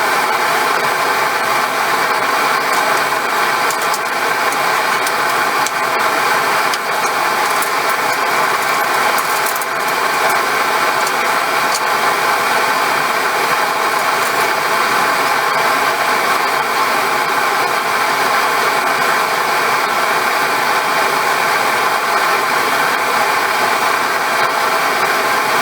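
A machine running steadily: a continuous motor hum with several held tones, unchanged throughout.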